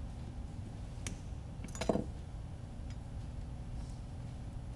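Hand wire cutters clicking as they work a drone motor's wires: a sharp snip about a second in and a quick cluster of louder snips just before two seconds in, over a low steady hum.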